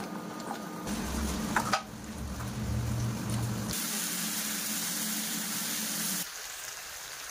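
Vegetables and potato pieces sizzling in a wok on an induction cooktop as a spatula stirs them. The sizzle starts suddenly about halfway through and cuts off shortly before the end. Before it, a spoon stirs a thick stew in a pot over a low steady hum.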